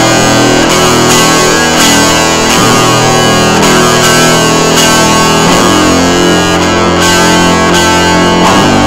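Loud music with distorted electric guitar, its low notes changing about every three seconds.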